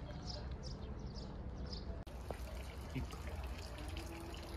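Water trickling and dripping at a mineral spring, heard after a cut about two seconds in; before the cut, a run of short high chirps.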